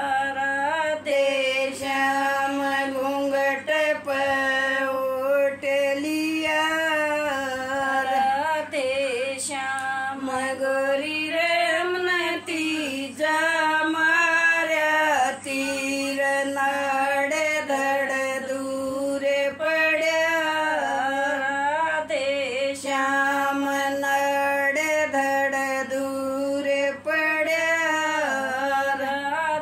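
An elderly woman singing a folk song (geet) without accompaniment, in long held melodic lines broken by short pauses for breath.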